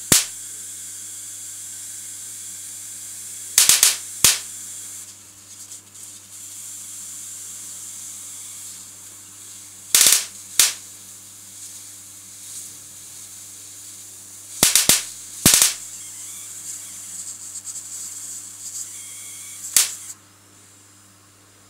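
High-voltage sparks from a TV flyback transformer with a voltage tripler, about 20 kV, arcing across graphite pencil shading on paper. About ten sharp cracks come at irregular intervals, some in quick clusters, over a steady high hiss with a low hum. The hiss fades after the last crack near the end.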